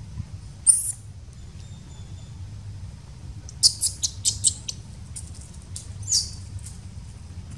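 Newborn macaque giving short, high-pitched distress squeaks while its mother pulls it about: one about a second in, a quick run of five or six in the middle, and one more near the end, over a low steady rumble.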